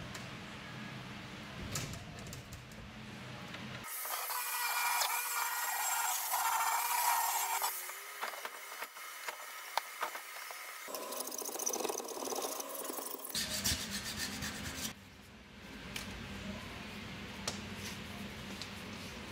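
Power drill with a right-angle head and sanding drum sanding inside a fiberglass boat hull. It runs in stretches that change abruptly, the loudest and harshest about four seconds in, with a short quieter gap later on.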